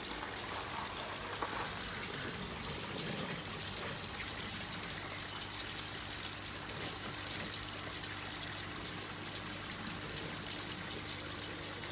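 Steady trickle of running water in an aquaponics setup, with a faint low steady hum underneath.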